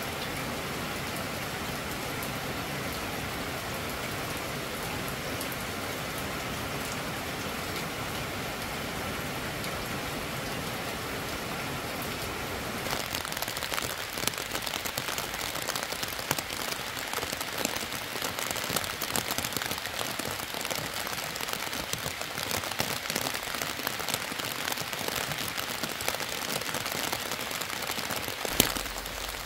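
Steady rain falling on leaves and the ground. About 13 seconds in it turns to a closer, crisper sound of many separate drops.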